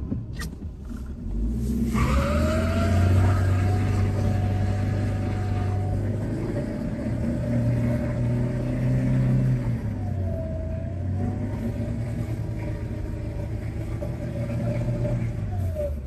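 Small two-wheel-drive car's engine revved hard and held at high revs, starting about two seconds in, as the car struggles and fails to climb an icy slope. A steady whine rides over the engine note, dips briefly partway through, then falls near the end.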